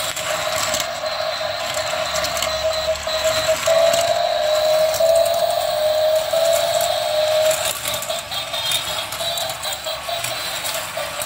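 Battery-powered toy race track running: its small electric motor whines steadily, swelling and rising a little in pitch around the middle, while plastic toy cars click and rattle through the wheel lift and along the plastic track.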